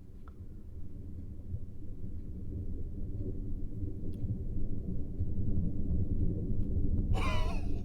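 A horror film's low rumbling drone swelling steadily louder, broken near the end by a sudden shrill screech that wavers in pitch, a jump-scare sting before the sound cuts off.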